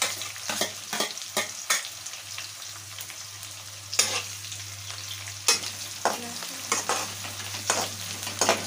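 Onion and potato pieces sizzling in hot oil in a kadhai, the onion freshly added. A metal spatula stirs and scrapes the pan, with frequent sharp clicks and knocks over the steady sizzle.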